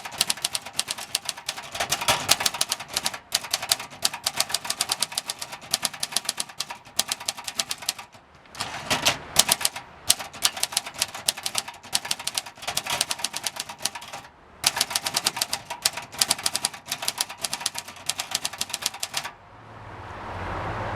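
A 1969 Brillant Junior manual typewriter being typed on, its worn-out mechanism giving runs of rapid key and typebar clacks with brief pauses. The typing stops about 19 seconds in, and a steady low hum and hiss swell up near the end.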